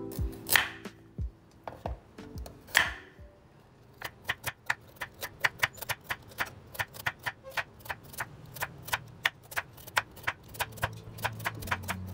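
Chef's knife slicing a carrot into rounds on a bamboo cutting board: a steady run of sharp taps, about four a second, as the blade hits the board. Two louder short swishes come first, before the chopping starts.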